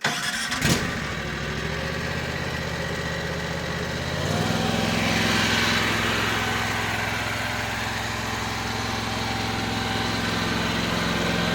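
Zongshen V-twin engine of a new mini track loader starting and running, with a short sharp sound under a second in. About four seconds in it steps up to a faster, steadier speed and keeps running evenly.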